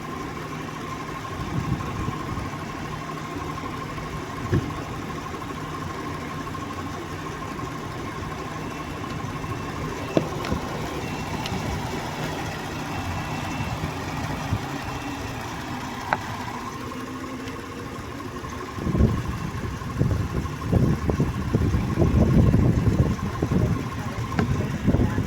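A 2022 Jeep Grand Cherokee's engine idling with the air conditioning running while its refrigerant is recharged, with a steady hum and a steady high tone. About three quarters of the way through, a louder, uneven rumbling starts.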